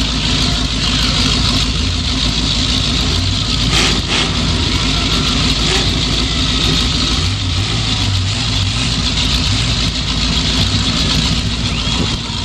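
1979 Ford Thunderbird's 351M V8 demolition-derby engine running steadily at idle, heard from the driver's seat, with a brief knock about four seconds in.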